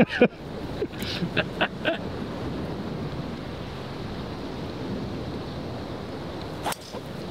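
Steady wind and surf noise on the microphone, then near the end a single sharp crack as a driver strikes a golf ball off the tee.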